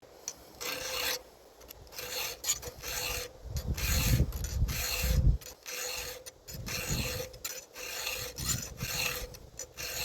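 A file rasping back and forth across a chainsaw chain's cutter tooth and gullet, in even strokes of about two a second, sharpening the tooth and setting its hook.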